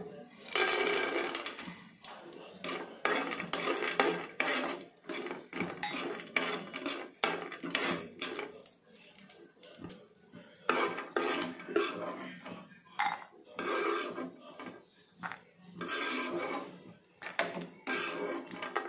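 Raw peanuts tipped into a nonstick frying pan with a little oil, rattling onto the pan for a second or so. They are then stirred and pushed around with a metal slotted spoon: a run of clicks and scrapes of metal on the pan and the nuts.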